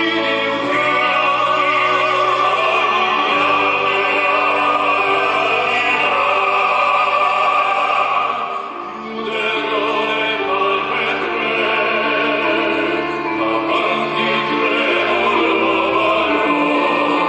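Tenor vocal quartet singing in operatic style over an instrumental accompaniment with held bass notes; the music dips briefly a little past halfway, then the voices come back in full.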